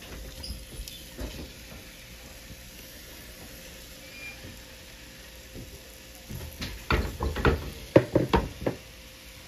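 Floured chunks of raw beef sliding off a plate and dropping softly into an empty metal stockpot, then a quick run of clattering knocks near the end as the pot is handled.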